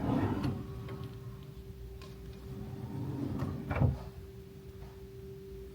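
A dresser drawer sliding open, then pushed shut with a knock about four seconds in, over a steady low hum.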